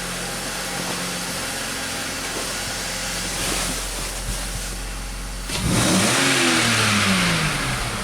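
BMW X5 six-cylinder engine idling steadily, then revved hard about two-thirds of the way through: the pitch climbs quickly and falls back to idle over about two seconds. It runs and revs with no sign of the misfire, which the owner calls perfect.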